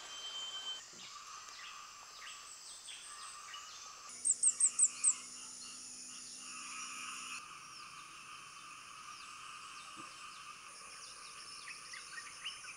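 Tropical night chorus of insects and frogs: a steady, many-layered high trilling and chirring that changes abruptly a few times. About four seconds in, five quick, loud, high chirps sound in a row.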